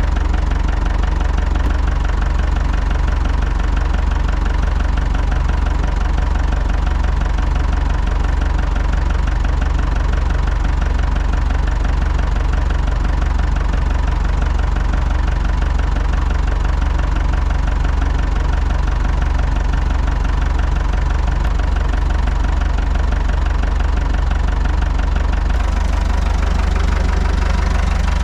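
A small engine running steadily and loud, close to the microphone, with a hiss added in the highest range near the end.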